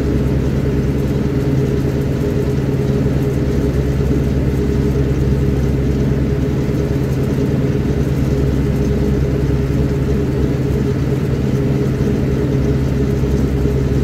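Farm tractor's diesel engine running steadily under way, pulling a trailer, heard from inside the cab.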